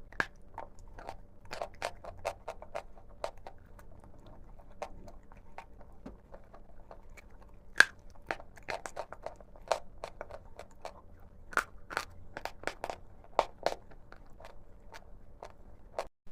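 Big Love chalk being bitten and chewed close to the microphone: a run of sharp, irregular crunches and snaps, the loudest about eight seconds in.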